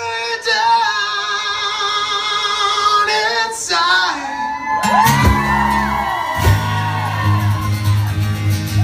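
Live acoustic rock band: a man sings one long held high note that slides down after about three seconds. From about five seconds in, guitars play on over steady low bass notes.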